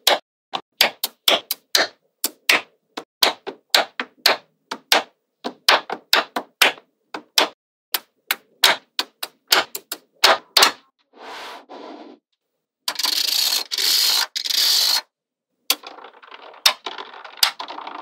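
Small magnetic balls snapping onto one another one at a time, sharp clicks about two or three a second. After about eleven seconds the clicks give way to stretches of continuous rattling rustle, the loudest a little after halfway.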